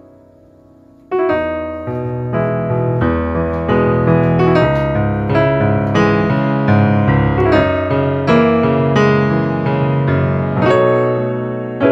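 Background piano music: after a fading note, a new phrase begins about a second in, with notes struck at an even pace.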